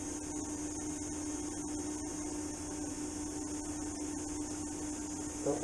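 Steady electrical hum from a TIG welder with a high hiss over it, and no arc struck: the earth clamp has not been connected.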